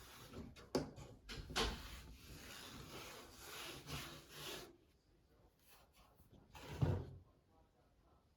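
Dryer lint filter being handled and scraped: rubbing and scraping with a few sharp clicks, then a single louder knock about seven seconds in.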